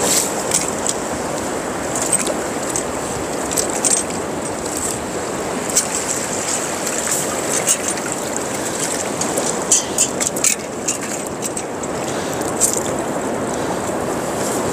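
Shallow ocean surf washing steadily, with irregular small splashes and sloshes as hands rinse freshly dug razor clams in the water, picked up close by a body-worn wireless microphone.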